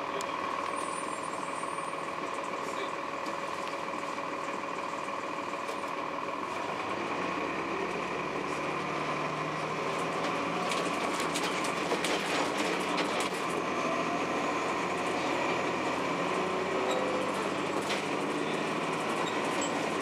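Cab-interior sound of a Blue Bird CS transit bus: the Cummins ISC diesel and Allison B400R automatic transmission running with a steady drone and whine. It grows louder from about halfway through, and the body and fittings rattle.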